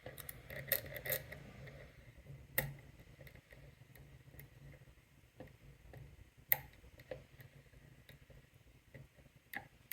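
Faint, scattered clicks and ticks of a long hook lock pick working the spool pins inside a Lockwood padlock under tension, with two sharper clicks about two and a half and six and a half seconds in.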